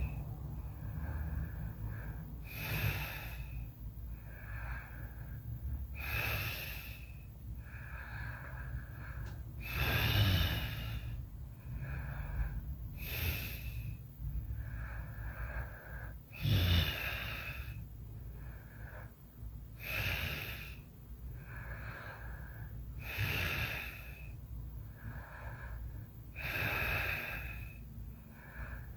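A person snoring in sleep: slow, regular breathing, with a louder snoring breath about every three and a half seconds, each followed by a softer breath.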